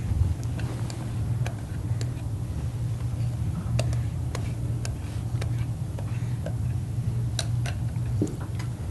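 Scattered light clicks and taps of a spoon against a glass mixing bowl as thick batter is poured and scraped out, over a steady low hum.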